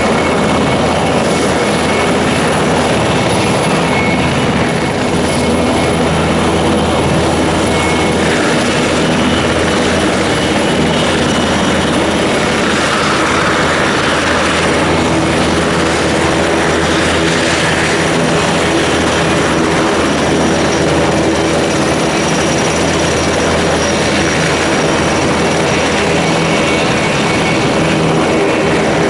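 Aircraft engines running steadily: a loud, continuous drone with several held tones over a haze of engine noise.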